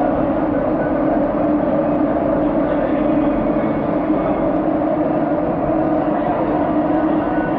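Madrid Metro Line 3 train running through a tunnel, heard from inside the car: a steady, loud running noise of wheels on rail with a constant hum.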